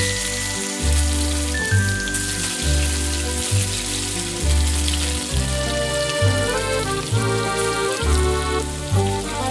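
Background music with a heavy, repeating bass beat and held synth tones, more melody notes coming in about halfway through, over a steady hiss.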